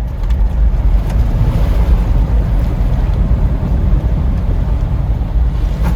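2020 Toyota Land Cruiser 76 with its V8 turbo-diesel pulling hard at speed through a deep, water-filled mud hole, water and mud splashing and rushing against the vehicle.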